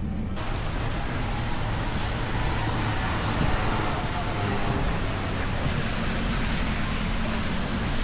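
Steady hiss of heavy rain that comes in abruptly just after the start, over a low, steady rumble.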